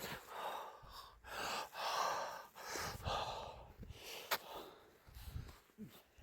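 A person breathing hard in gasps, about five breaths in the first four seconds. A sharp click comes a little past four seconds in.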